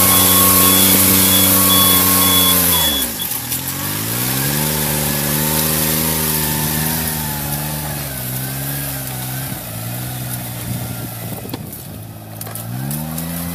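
Riding rice transplanter's engine running steadily, then its speed drops sharply about three seconds in and picks back up a second later, easing down a little twice more and dipping and climbing again near the end. An intermittent high beep sounds during the first three seconds.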